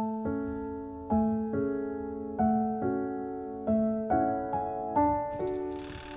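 Background music: a gentle piano tune of single notes and chords, a new note struck every half second to a second, each fading away.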